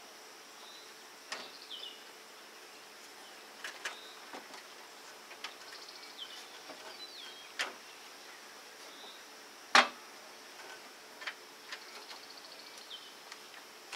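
Scattered sharp clicks and knocks of parts being handled in a truck's engine bay as a replacement radiator is settled into place, the loudest about ten seconds in. Under them runs a steady high insect drone, with a few short high chirps.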